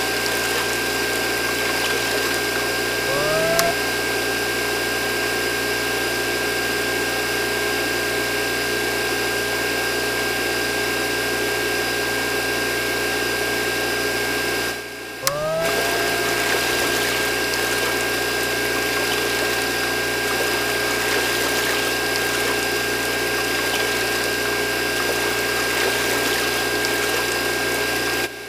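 Small DC motors of a toy borewell drilling rig running with a steady whine as the drill head spins in wet mud, with a mini water pump feeding water down a hose. Twice, about three seconds in and again about halfway after a brief dip, a motor's whine rises as it spins up.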